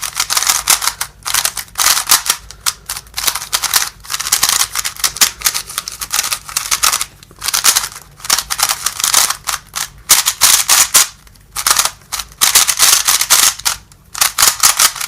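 A new YuXin plastic speed cube being turned fast by hand for its first turns: rapid clicking and clacking of the layers in runs of a second or two, with short pauses between them.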